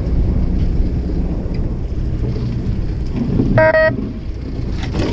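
Fishing boat's engine running steadily with wind on the microphone. About three and a half seconds in, the boat's horn gives one short, high blast, the captain's signal to reel up the lines.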